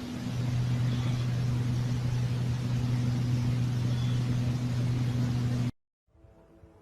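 Unexplained low droning hum heard from the sky, two steady low tones over a hiss, which the recorder likens to aeroplane turbines; the lower tone joins just after the start. It cuts off abruptly near the end, leaving only faint background with a few light clicks.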